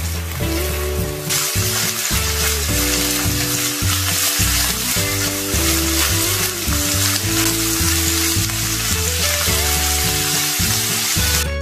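Minced beef sizzling in a hot nonstick pan as it is stirred and turned with a spatula, over background music. The sizzle gets louder about a second in.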